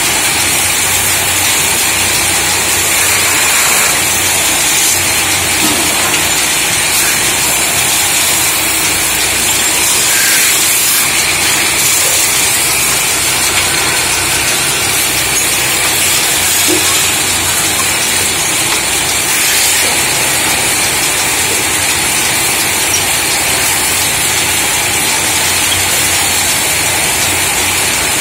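Belt-driven lathes running while tools are held against spinning aluminium pots: a loud, steady hiss of metal being worked over a low machine hum.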